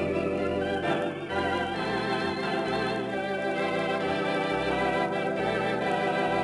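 Theatre organ playing sustained chords with a wavering tremulant, over a bass line that moves to a new note about twice a second.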